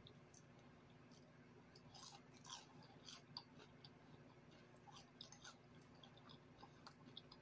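Faint chewing of a crunchy chip: scattered soft crunches and mouth clicks, busiest about two to three and a half seconds in and again around five seconds.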